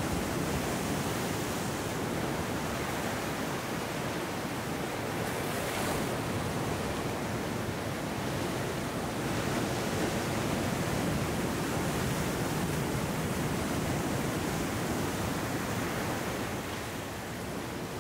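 Ocean surf washing in over rocks and sand, a steady rushing wash that swells about halfway through as a wave breaks against the rocks, then eases near the end.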